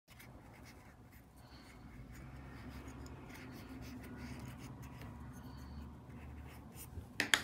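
Wooden chopstick pushing stuffing into a crocheted amigurumi piece: faint scratchy rubbing of yarn and stuffing, with a couple of sharp clicks near the end.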